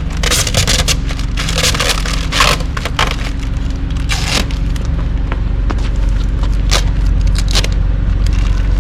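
Plastic windshield and its metal clamps being handled: irregular scraping and rustling with sharp clicks, busiest in the first couple of seconds and with a few single clicks later, over a steady low hum.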